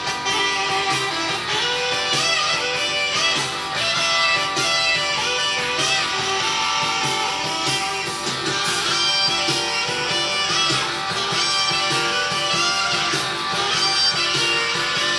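Blues-rock song with electric guitar in an instrumental stretch, with no singing.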